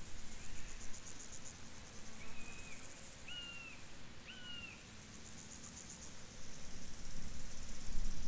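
Field insects chirping in high, rapid pulsed trills that come and go in bursts of about a second. A bird gives four short whistled notes, each about a second apart, in the first half. A low background rumble grows louder near the end.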